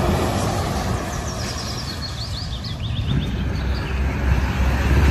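Diesel engine of a semi-trailer truck running as the rig drives slowly past at close range, a steady low hum that grows louder near the end.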